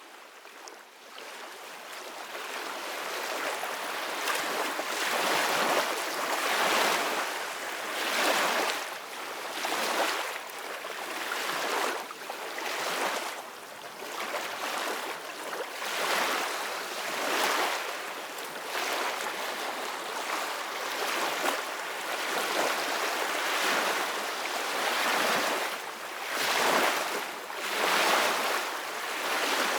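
Ocean waves washing onto a beach: a steady rushing hiss that swells and ebbs every second or two. It fades up from silence over the first few seconds.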